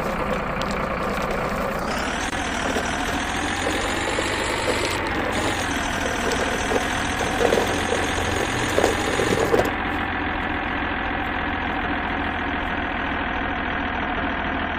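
Truck engine running steadily at idle, with a few louder knocks a little past halfway through.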